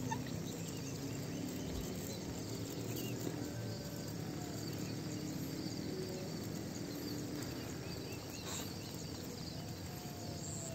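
Rural outdoor ambience: a steady background hiss with faint insects chirping.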